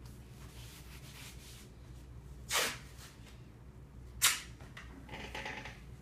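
Rigid strapping tape being pulled off the roll and torn: two short, sharp rips about a second and a half apart, then a softer, longer rasp near the end.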